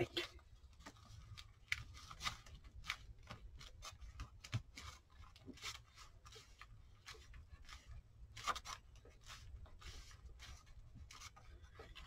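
Faint rustling, rubbing and small clicks of paper and card being handled as a mounted card is pressed and smoothed onto a card album page and the album is picked up. A low steady hum runs underneath.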